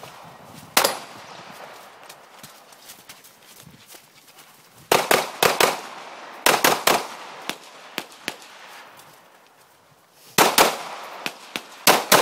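9mm pistol shots in quick strings: a single shot about a second in, then rapid clusters of shots around five to seven seconds in and again from about ten seconds on, with quieter gaps between the strings.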